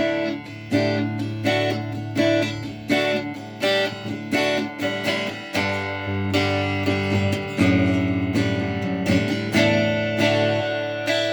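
Stratocaster-style electric guitar played, a run of picked chords and notes in a steady rhythm, with a fresh attack roughly every three quarters of a second.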